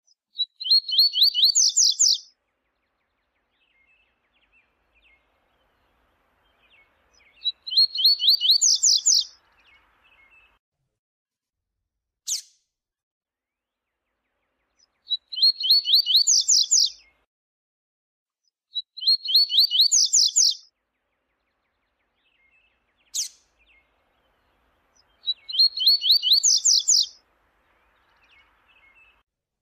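Double-collared seedeater (coleiro) singing: five short phrases, each under two seconds and a few seconds apart. Each phrase is a fast run of repeated notes that climbs a little in pitch. Two single sharp notes fall between the phrases.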